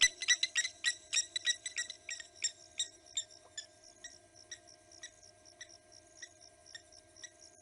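Blacksmith lapwings giving their sharp, metallic 'tink' alarm calls in a fast series that slows to about two a second and grows fainter. A faint steady hum runs underneath.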